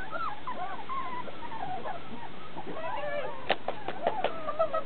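Puppy whimpering: a quick string of short, high, wavering whines. A few sharp clicks come about three and a half seconds in, and a fast run of short pulsed cries near the end.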